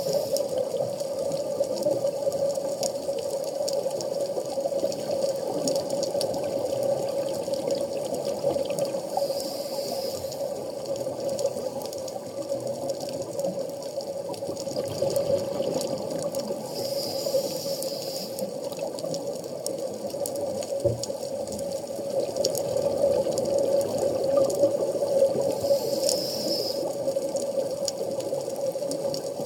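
Underwater ambience recorded by a camera in a dive housing: a steady muffled water noise with a constant hum, and a brief rise of hiss roughly every eight seconds.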